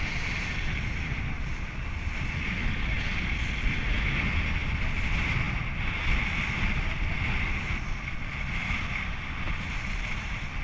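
Rigid inflatable speedboat running at low speed: a steady drone of engine and water, with wind buffeting the microphone.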